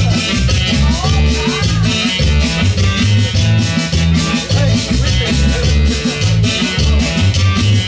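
Latin dance music with a steady, bass-heavy beat and shaken percussion, with a few short rising melodic slides about a second in.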